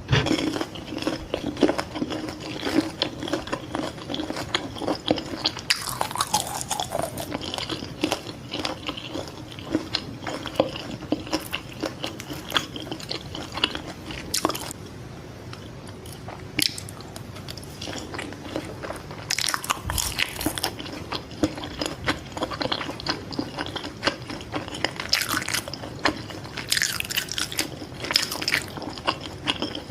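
Close-miked eating of fried fish balls: a steady run of biting and chewing with many small mouth clicks, and a few louder bites now and then.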